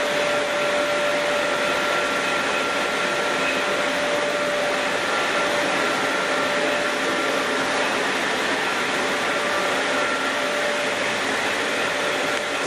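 Chili milling-line machinery running steadily: a loud, even rushing hum like a big fan or blower, with faint steady whining tones that fade in and out.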